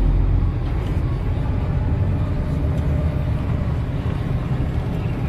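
Heavy diesel truck engine running steadily, heard from inside the cab as a low drone with road noise.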